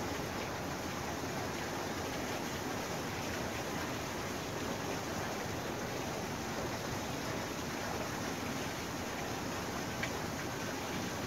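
Steady, even rushing of seawater washing against the shore rocks.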